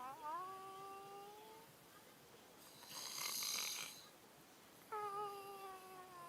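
Snoring: a long, high, whistling tone on one breath that slides slowly upward, a short hissing breath in the middle, then another long whistling tone that starts about five seconds in and slowly falls.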